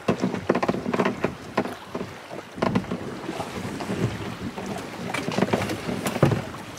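Choppy sea water sloshing and slapping against the hull of a small boat in irregular splashes, with wind buffeting the microphone.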